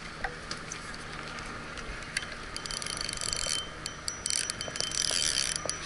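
Fishing reel ratcheting in two bursts of rapid clicking with a high whine, each lasting about a second.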